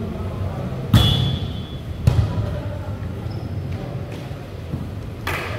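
A volleyball thudding sharply as it is played: once about a second in (the loudest), again a second later, and once more near the end, echoing in a large hall.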